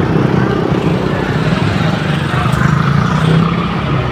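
Motor scooter running at riding speed through street traffic, a steady engine hum under road noise.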